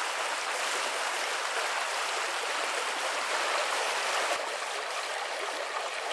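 A small rocky brook rushing steadily, an even hiss of running water that drops slightly in loudness about four seconds in.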